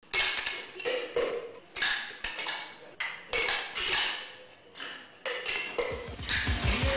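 A series of about nine sharp metallic clanks and clinks, irregularly spaced, each ringing briefly. Music with a bass beat comes in near the end.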